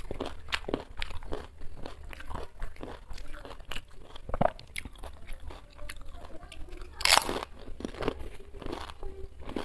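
Close-up crunching and chewing of fuchka (panipuri): crisp fried puri shells cracking between the teeth in a run of short crackles, the loudest crack about seven seconds in.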